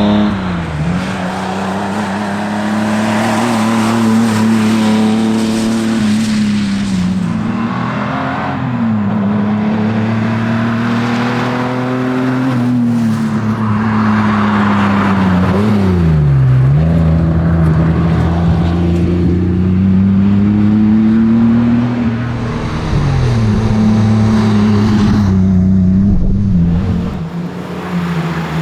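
1979 Ford Cortina Mark IV rally car engine running hard, its note holding high and then dropping and climbing again several times as the driver brakes, changes gear and accelerates.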